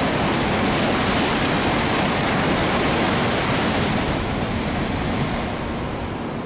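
Tokaido Shinkansen N700-series train passing through the station at very high speed on the through track: a loud, even rushing of air and wheels that eases off after about four and a half seconds.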